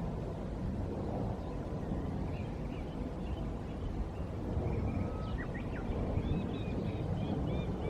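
Small birds chirping in short, repeated high notes, more often in the second half, over a steady low rumble of wind.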